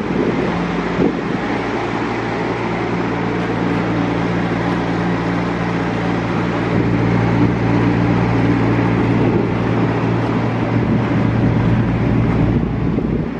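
An engine running steadily at idle, a low even hum that fades near the end, over a constant rushing noise.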